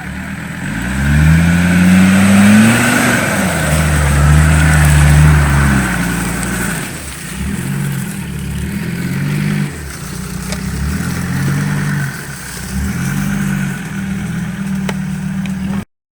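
Off-road 4x4's engine revving under load. It climbs in pitch over the first few seconds and holds high, then eases off and picks up again several times, and cuts off abruptly just before the end.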